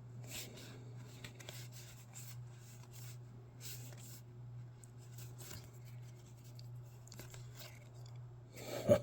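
Foil Pokémon card booster pack and cards being handled: a run of short rustles, scrapes and tearing strokes over a low steady hum, with a louder knock near the end.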